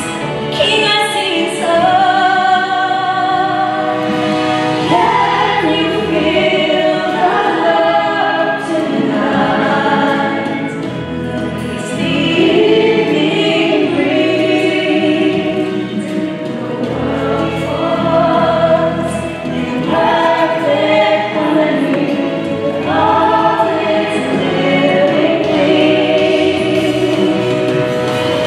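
Choir singing with musical accompaniment, with long held notes.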